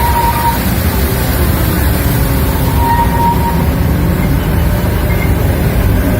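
Waterfall rushing with a steady, loud roar of falling water.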